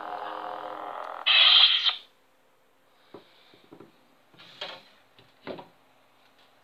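Lightsaber replica's Plector Crystal Shard 2 sound board playing the blade's steady hum through the hilt speaker, then a loud power-down (retraction) sound a little over a second in, after which the hum is gone. A few faint clicks and knocks of handling follow.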